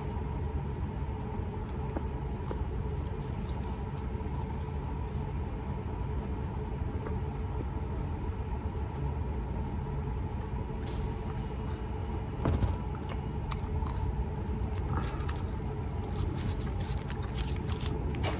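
Steady low rumble and hum of a fast-food restaurant's dining room, with a faint constant tone over it. Scattered small clicks and crunches of eating and handling fried food, and a single louder knock about twelve seconds in.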